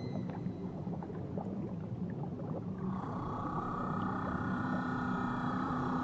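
Underwater crackling and a low hum, then about halfway through a whale starts one long, held call with several tones together.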